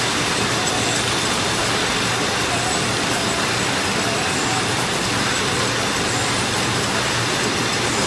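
Steady machine din of a running packaging line: a roller conveyor carries shrink-wrapped trays of jars past a print-and-apply case labeler, under a constant low hum.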